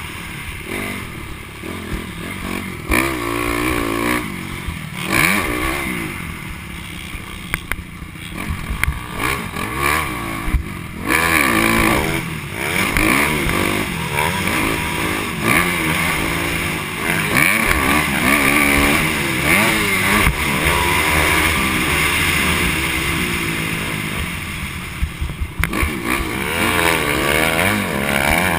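Dirt bike engine revving up and down over and over as the rider accelerates and shifts around a motocross track, heard close from a helmet-mounted camera, with a few sharp knocks.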